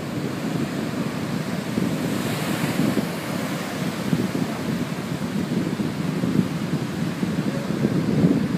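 Surf breaking and washing up a sandy beach in a steady rush, with a brief swell a couple of seconds in, and wind buffeting the microphone.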